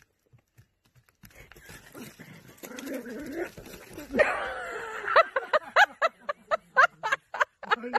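Small dog barking in quick, high yaps, about three a second, starting about five seconds in and carrying on. Before that comes a rough rustling noise and a louder burst about four seconds in.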